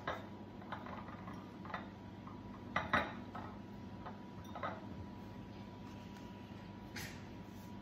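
Small pieces of frozen banana dropping into empty glass beer bottles: a handful of separate light clinks and taps on the glass, the loudest pair about three seconds in, over a faint steady hum.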